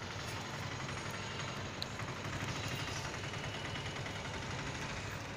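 A steady engine running, from machinery at a building construction site, with a low, even hum.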